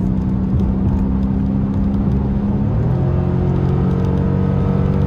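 Dodge Scat Pack's 6.4-litre HEMI V8 running at a steady drone under low road rumble while the car is being driven. About three seconds in, the engine note steps down in pitch.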